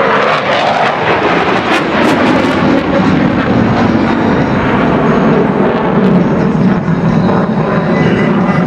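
Aircraft flying overhead: a loud, steady engine roar, with crackling in the first few seconds.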